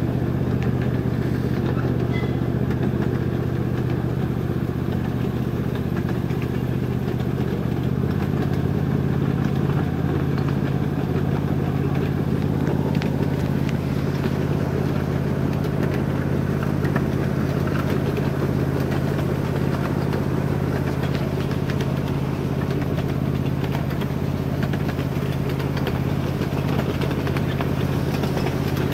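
Small engine running steadily at an even speed as it pulls a low ride-on vehicle along a gravel trail, with a faint rattle over it.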